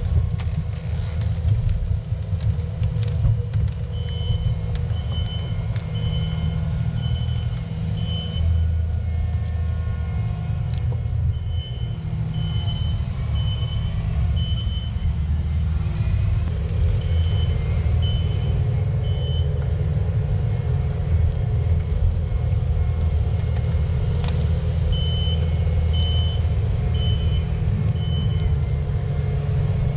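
Diesel engine of heavy earth-moving equipment running steadily under load, with a backup alarm beeping at a little over one beep a second in several runs as the machine reverses.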